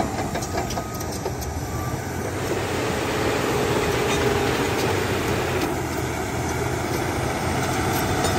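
Caterpillar D8T crawler dozer's diesel engine running steadily under load as its blade shoves a stump out of the ground.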